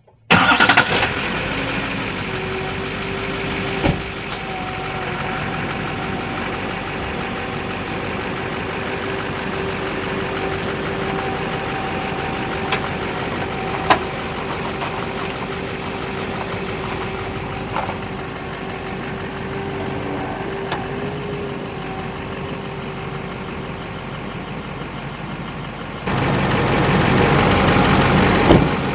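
Duramax 6.6 L V8 turbodiesel pickup running, with a handful of sharp, widely spaced pops from the front end as the steering is turned. The popping turned out to come from loose engine crossmember bolts. The engine gets louder near the end.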